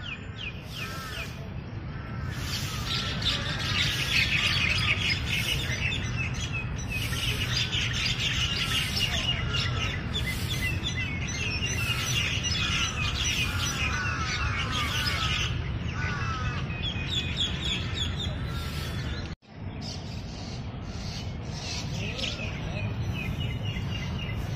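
Many birds chirping and twittering together in a dense, continuous chorus over a steady low rumble. The sound drops out for an instant about three-quarters of the way through, then the chorus resumes.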